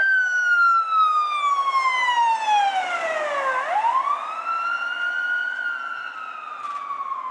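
LAFD rescue ambulance's siren on a slow wail: the pitch falls slowly, rises quickly about three and a half seconds in, then falls slowly again. It grows fainter toward the end as the vehicle drives away.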